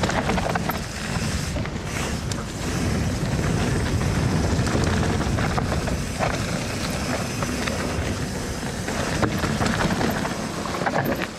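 Steel hardtail mountain bike riding fast down a rocky, gravelly trail: wind rushing over the camera microphone, tyres on loose stone, and occasional knocks from the bike over bumps. The noise eases near the end.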